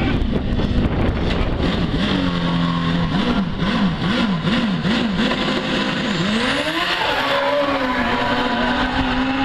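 Drag-racing motorcycle engine on a dirt strip, blipped up and down about twice a second at the start line with sharp exhaust crackles, then opened to full throttle for the launch about six seconds in, its pitch sweeping up and holding high and steady as it runs.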